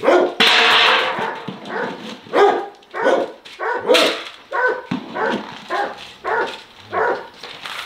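Several kennelled bear-hunting hounds barking over one another in short, repeated barks, about two a second. The densest, loudest stretch comes about half a second in.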